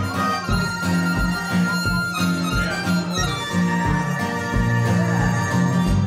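Diatonic blues harmonica playing a pre-war blues melody, with sliding bent notes near the start, over guitar accompaniment keeping a steady beat about twice a second.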